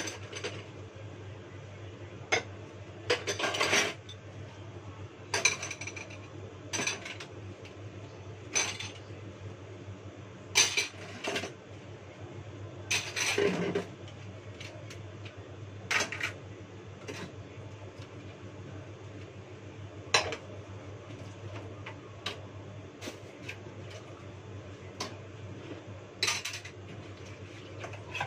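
Dishes, bowls and cutlery clinking and clattering against each other in a kitchen sink as they are washed by hand: irregular knocks every second or two, with one longer clatter around the middle.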